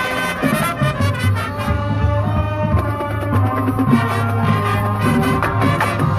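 Marching band brass and percussion playing a loud, full-ensemble passage, with a sustained low bass line entering about a second in.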